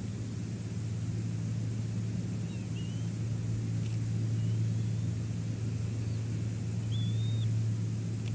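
Steady low rumble of wind and sea picked up by an outdoor cliff-top microphone, with a few faint, short high chirps scattered through it.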